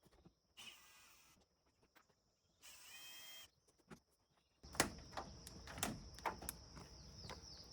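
Faint knocks, scrapes and a brief squeak from work on the camper's wall-mounted air conditioner unit as it is worked loose. Small clicks and knocks come thick and fast in the second half.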